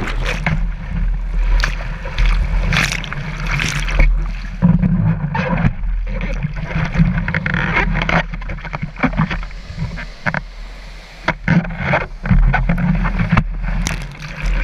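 Seawater splashing and rushing around a surfboard as a surfer paddles through whitewater, with irregular sharp splashes over a steady low rumble of water buffeting a camera on the board's nose.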